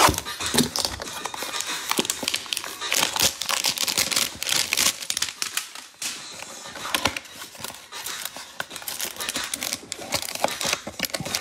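Plastic wrapping of a Panini Mosaic basketball card hanger pack being torn open and crinkled, with the cards being handled: a busy, irregular run of crackles, rustles and tearing.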